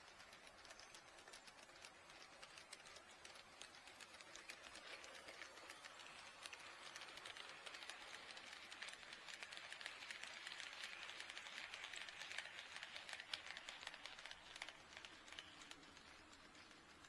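HO scale model train running on the track, a fast patter of small wheel clicks and rattle with a whirr that grows louder through the middle as it passes close, then fades.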